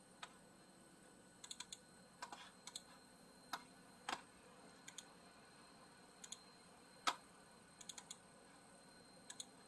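Sparse computer keyboard keystrokes and clicks, some single and some in quick runs of two to four, against near silence.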